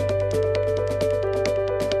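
Background music with a steady beat and a repeating melody.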